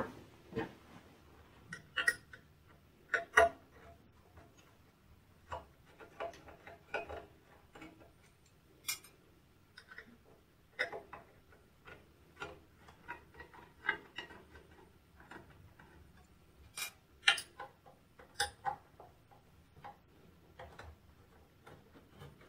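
Metal screws being backed out of a UPS battery tray's front panel with a Phillips screwdriver: irregular small clicks and clinks of the driver tip and screws on the steel case, a few of them sharper and louder than the rest.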